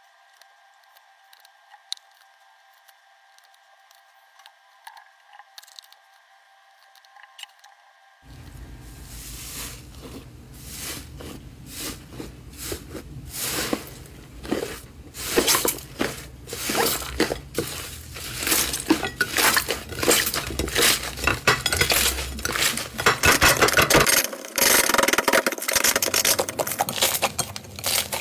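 Slime handled by hands: a few faint sticky clicks at first, then from about eight seconds in a dense, crackling run of clicks and pops that grows louder as the slime is squeezed and pressed.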